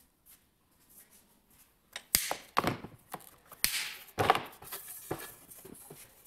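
Pine board knocked and scraped against the drill press table as it is freed from the hole saw and lifted. The irregular knocks and scrapes begin about two seconds in, with no motor running.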